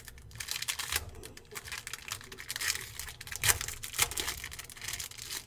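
Foil trading-card pack wrapper crinkling and crackling as it is handled, with a run of irregular sharp crackles.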